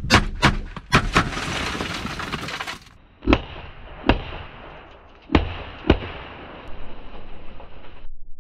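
Smith & Wesson M&P pistol firing 9mm Hornady Critical Duty rounds from inside a car through its windscreen and tempered side glass: four quick shots, a hissing crackle of glass breaking for a second and a half, then two more pairs of shots.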